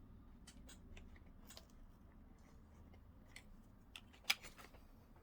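Faint, scattered small clicks and taps of an M.2 SATA SSD and laptop parts being handled, with one sharper click about four seconds in.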